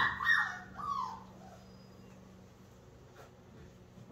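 Flat-coated retriever puppy whimpering: several short, high-pitched whines that slide up and down in pitch, dying away about a second in.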